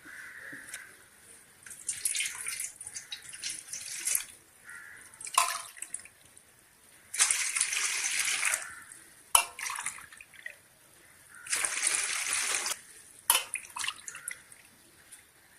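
Water poured by the cupful into a cooking pot: several separate pours of a second or so each, with short knocks between them.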